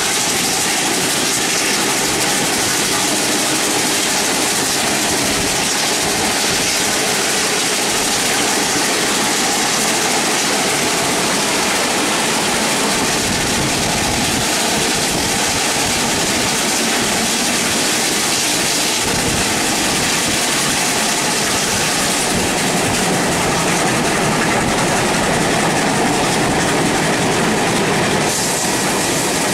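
Train hauled by the 6029 Garratt steam locomotive running on the track, heard from aboard: a loud, steady rushing noise of the moving train.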